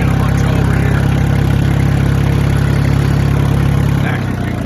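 An engine running steadily at a low, even speed. About four seconds in it briefly drops in level and pitch.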